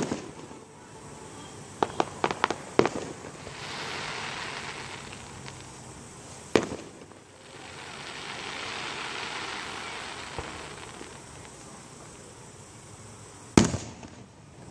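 Fireworks display: sharp bangs of shells bursting, at the start, about six and a half seconds in, and a loudest one near the end. About two seconds in comes a quick run of five or six pops, and between the bangs there are long swells of hiss.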